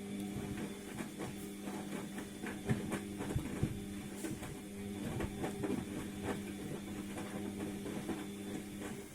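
ATLANT washing machine's drum motor turning the drum during the wash cycle: a steady motor hum with irregular clicks and knocks. It cuts off near the end as the drum stops between turns.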